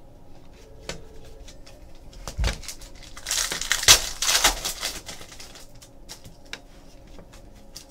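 A foil trading-card pack from a Donruss basketball box being torn open, with a burst of wrapper crinkling about three to five seconds in. Light clicks of cards being handled come before and after.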